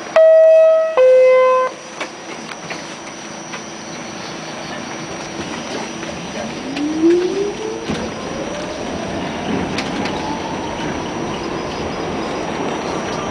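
R46 subway car's two-tone door chime, a high note falling to a lower one, loud at the start, then a knock about two seconds in. From about six seconds the traction motors whine, rising steadily in pitch as the train starts to accelerate, under a growing rumble and clatter of the wheels on the rails.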